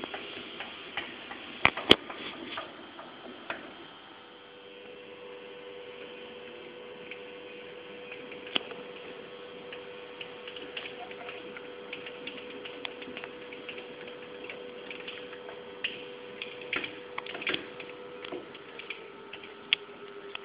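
Metal lathe running with a steady hum that starts about four seconds in and stops shortly before the end, among scattered clicks and ticks of metal parts, two sharp ones near the start.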